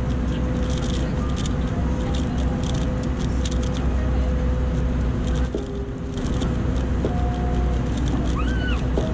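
Steady aircraft cabin drone, with a strong low hum and steady tones, and frequent short, light clicks over it.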